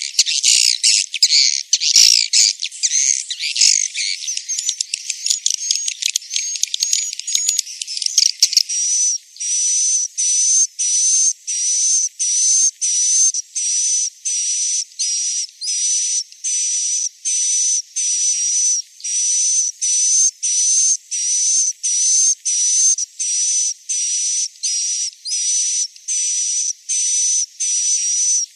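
Swiftlet roosting-call recording of the kind played in swiftlet houses to make young birds settle: a dense twittering chatter for about the first eight seconds, then a regular train of short buzzy chirps with a thin high whistle, about one and a half per second.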